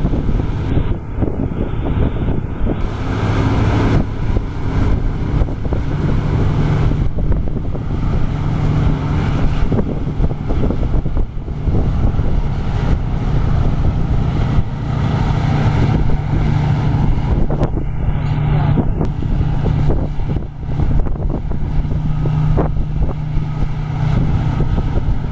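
Heavy diesel farm machinery running steadily under load, its engine note swelling and easing a little, with some wind on the microphone.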